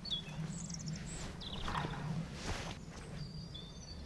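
Small birds chirping and trilling with short high calls, over a steady low background hum, with soft footsteps and rustling from someone moving on the bank.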